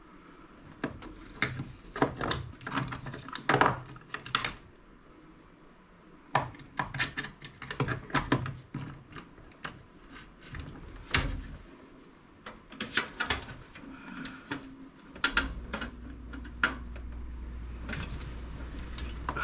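Small metal tools and computer parts clinking and clattering as they are handled, in quick irregular runs of clicks, while a screwdriver bit is tried on a screw. A steady low hum starts about three-quarters of the way through.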